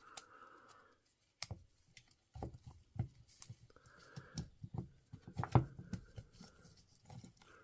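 Scattered light clicks, taps and knocks of small parts being handled while carbon brushes are fitted to a DeWalt DCH253 hammer drill's motor, the sharpest knock about five and a half seconds in.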